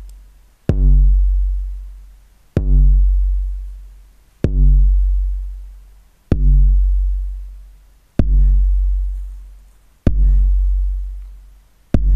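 Roland TR-808 kick drum sample hitting once about every two seconds, seven times: each hit is a sharp click and a long, deep boom that fades away. It runs through a compressor at 10:1 with its attack turned up, so the click at the start of each kick comes through much more strongly because the compressor only clamps down after it.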